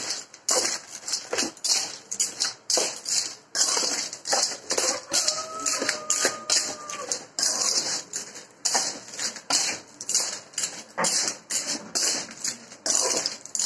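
Clams in their shells being stirred with a metal spoon in an aluminium wok: the shells clatter and scrape against each other and the pan in quick, irregular strokes.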